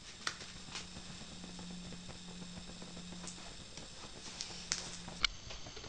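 Faint scattered clicks and ticks over a low steady hum as the wood gas stove's pellet fuel, primed with HEET alcohol, is lit. The hum cuts off with a sharper click near the end.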